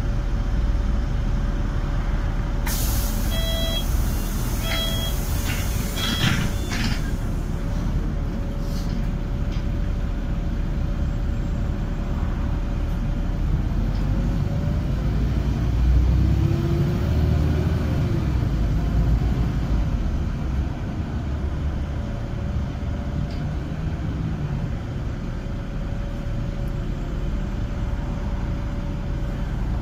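City bus running, heard from inside the cabin: a steady engine and road rumble with a constant hum. About three seconds in comes a burst of air hiss with a few short beeps.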